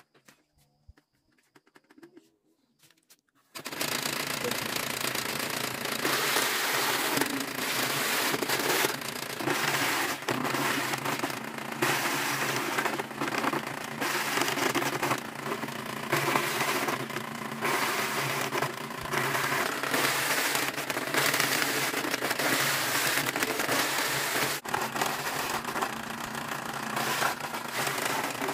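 Electric cassava shredder, a motor driving a spinning perforated grater disc by belt, starts up about three and a half seconds in and runs on. Cassava roots fed into it are shredded with a rapid, crackling rattle.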